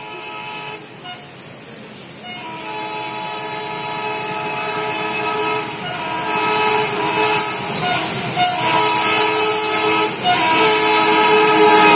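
A diesel locomotive's multi-note air horn blowing long blasts with short breaks, growing steadily louder over the rumble of a train on the move.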